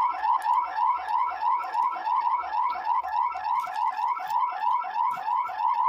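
Emergency alert system alarm tone: a short electronic chirp rising in pitch, repeated rapidly and evenly at about four a second.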